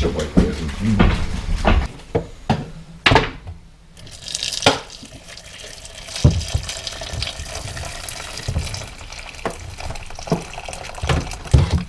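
A few knocks and clicks, then from about four seconds in a steady stream of water poured from a stainless electric kettle into a cooking pot, with a few more knocks along the way.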